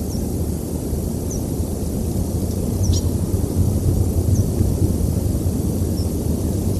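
Steady low wind rumble on the nest camera's microphone, with about five faint, very brief high bird chirps scattered through it.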